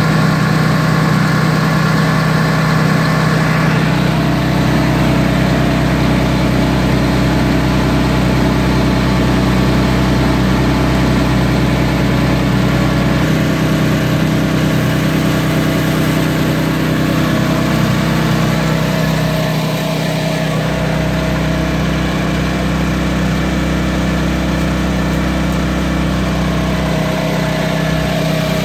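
Honda gas engine driving a Comet pump on a soft wash skid, running steadily. Its tone shifts slightly a few seconds in and again about two-thirds of the way through.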